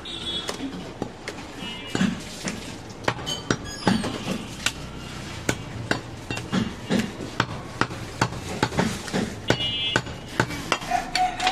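Heavy butcher's knife chopping goat meat and bone on a wooden log block: irregular knocks with dull thuds, roughly two chops a second.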